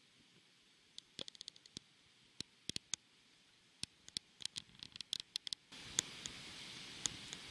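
Raindrops tapping on the camera and its microphone: scattered, irregular sharp ticks. About six seconds in, a steady hiss of wind and rain noise rises under them.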